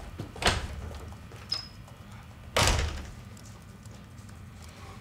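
A door being worked: a sharp click about half a second in, a short squeak a second later, then the door shutting with a loud bang a little over two and a half seconds in.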